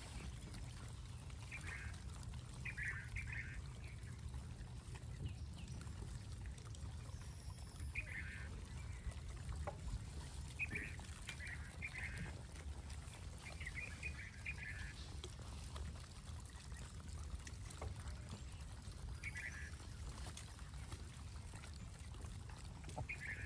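Short harsh animal calls, singly or two or three together, every few seconds over a steady low rumble.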